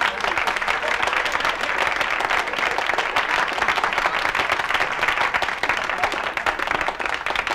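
Live audience applauding, dense steady clapping that thins out near the end.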